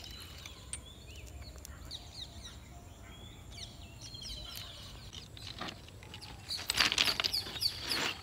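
Birds chirping and calling in quick short notes, busier and louder near the end.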